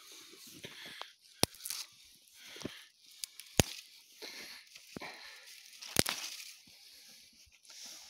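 Rustling and crunching of snow and brush, broken by three sharp snaps about one and a half, three and a half and six seconds in, typical of dry twigs being broken off for kindling.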